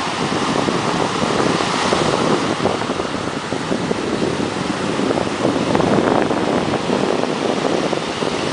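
Ocean surf washing on the beach with wind buffeting the microphone, a steady rushing noise.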